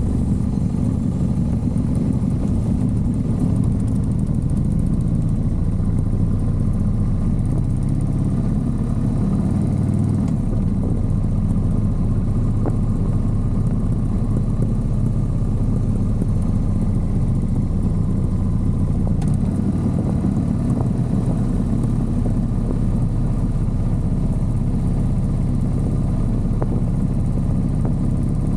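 Motorcycle engine running steadily while riding along an open road, with the low rumble of the ride underneath and no shifts or revs.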